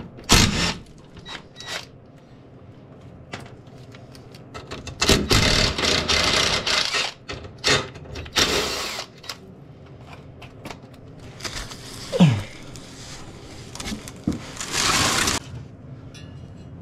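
Tool work on the bolts of an ATV plow mount: several short bursts of mechanical noise with pauses between them, the longest lasting about two seconds.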